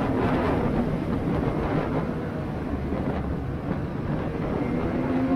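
2020 Ski-Doo Expedition Xtreme snowmobile's 850 E-TEC two-stroke engine running at trail speed under a dense, steady rush of noise. The engine pitch rises slowly near the end.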